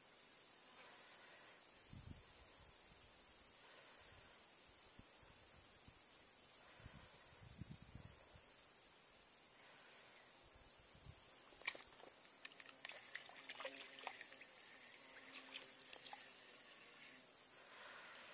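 Steady, high-pitched drone of insects in the surrounding vegetation, holding one even pitch throughout. From about two-thirds of the way in, a few faint clicks and rustles join it.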